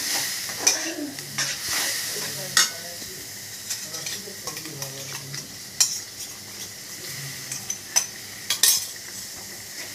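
Masala sizzling in a metal kadai while a metal spatula stirs and scrapes it, with sharp clinks of the spatula against the pan. Near the end, rinse water poured in from the jar brings a louder burst of sizzling and clatter.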